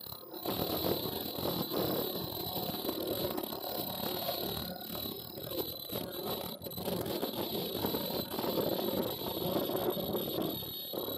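Tie-on medical mask welding machine running: a steady mechanical clatter from its feeders and belt conveyors, with a thin steady high whine over it.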